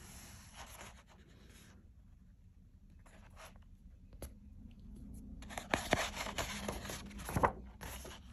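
Paper pages of a large-format album being handled: a hand sliding over the sheets and a page turned and pressed flat. The rustling is faint at first, with a few small clicks, then grows louder in the second half with a couple of sharp crackles of paper.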